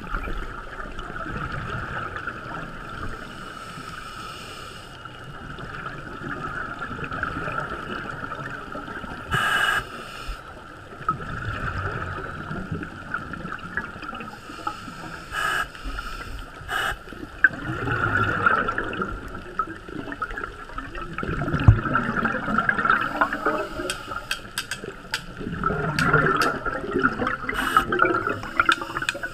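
Underwater sound heard through a GoPro's waterproof housing: divers' exhaled scuba bubbles gurgle and rush in repeated bursts over a steady muffled hiss. Several sharp clicks come near the end.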